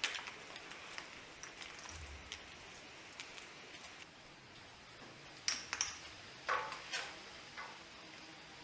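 An engine wiring harness being handled: its plastic connectors and loom click, tap and rustle. There are a few louder knocks about five to seven seconds in.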